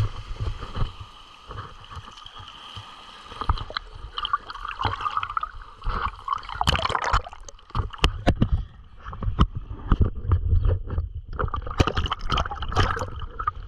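Water sloshing and gurgling right against a GoPro action camera, with many short knocks and bumps and a low rumble throughout.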